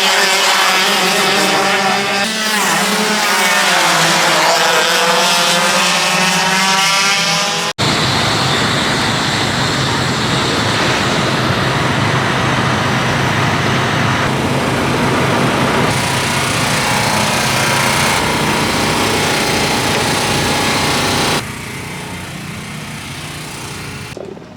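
Racing kart engines running hard, their pitch rising and falling as they rev through the corners. About eight seconds in, an abrupt cut leads to a steadier, rougher engine noise, which drops suddenly to a quieter level near the end.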